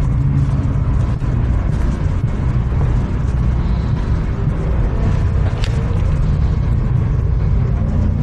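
Steady low rumble of background noise, with a short click about five and a half seconds in.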